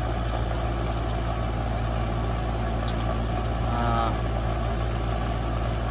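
Steady low hum of an engine or machine running, with a few faint clicks and one short pitched squeak about four seconds in.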